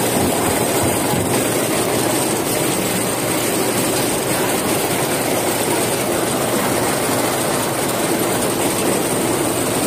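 A tractor engine running with a tractor-driven Shaktiman-Grimme potato grader working, giving a loud, steady, unbroken mechanical running noise.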